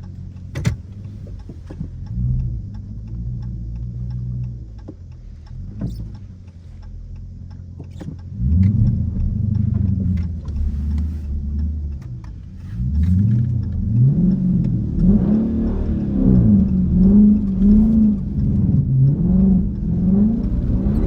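Car engine running low at first, then revved hard about eight seconds in. From about thirteen seconds on, the revs climb and drop again and again, as when a car is driven hard to slide in snow.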